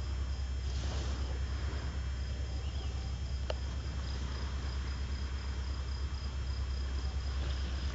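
Crickets trilling steadily over a constant low rumble, with a single sharp click about three and a half seconds in.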